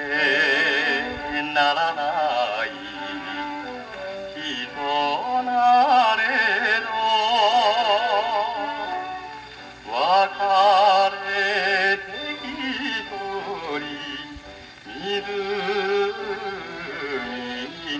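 1958 Japanese pop song playing from a 78 rpm shellac record on an acoustic wind-up gramophone: a continuous melody with strong vibrato, swelling and falling back in phrases.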